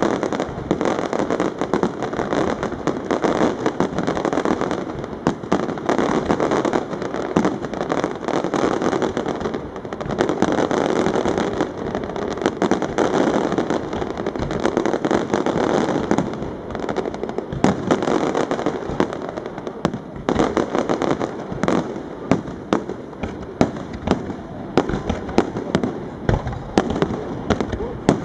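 Aerial fireworks display: a dense, continuous run of shell bursts and crackling stars. In the second half, sharper separate bangs stand out above the crackle.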